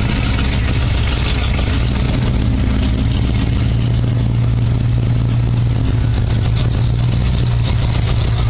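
Car engines idling and running slowly past, a steady low hum that grows louder in the middle as a car rolls by close.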